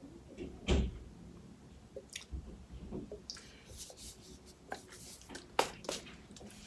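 Victoria's Secret Pink body mist spray bottle handled with light knocks and rustles, then spritzed near the end: short hissing sprays from the pump nozzle.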